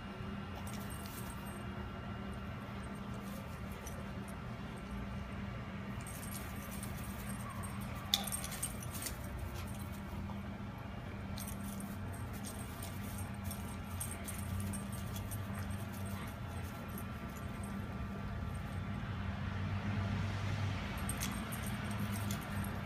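Light metallic jingling on and off, a dog's collar tags as he runs and plays, over a steady low hum. There is one sharp click about eight seconds in.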